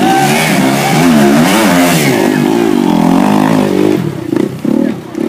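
Dirt bike engine revving in repeated rising and falling bursts as the throttle is worked to climb over logs. About four seconds in, the revving turns to shorter, choppier blips.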